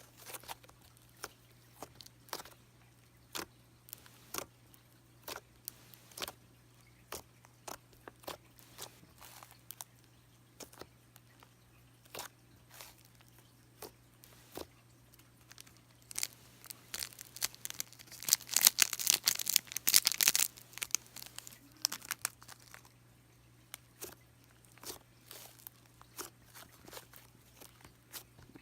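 Cream cheese slime being pressed and stretched by hand, giving scattered sticky clicks and pops. About two-thirds of the way in comes a dense burst of crackling and tearing that is the loudest part.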